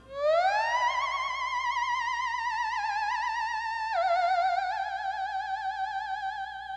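Music: a single theremin-like electronic tone swoops upward at the start, then holds with a fast vibrato warble. It drifts slowly lower, drops a small step about four seconds in, and fades a little near the end.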